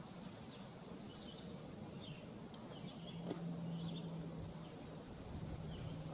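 Small birds chirping repeatedly in the background, with a low steady hum that comes in about halfway and a single faint click.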